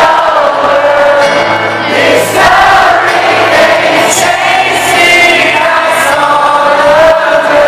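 A concert crowd singing along loudly in chorus with an acoustic live rock performance.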